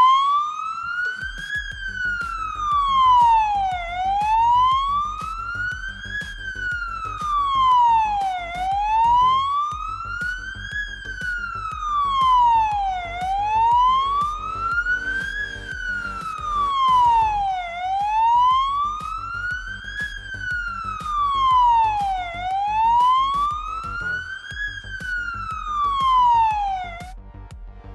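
Scania P410 fire engine's siren sounding a slow wail, rising and falling about every four and a half seconds for six cycles, then cutting off shortly before the end. A low electronic music beat runs underneath.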